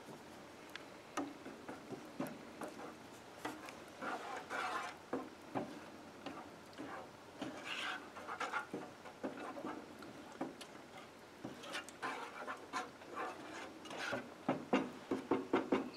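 A silicone spatula stirring thick cream-of-chicken-soup gravy in a metal saucepan: soft, irregular scrapes and clicks against the pan. Near the end it turns into a brisk run of strokes, about five a second.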